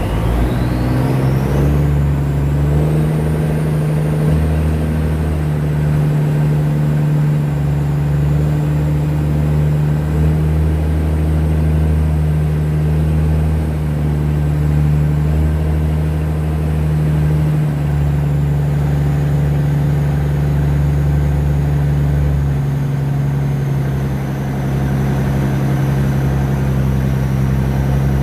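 Boat engine running steadily with a deep, even drone, a faint high whine rising over the first few seconds.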